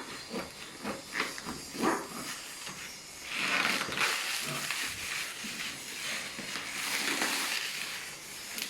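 Parcel packaging being torn and scraped open: a few scattered crinkles and scrapes, then about three seconds in a long, uneven hissing rustle of plastic wrap, tape or cardboard.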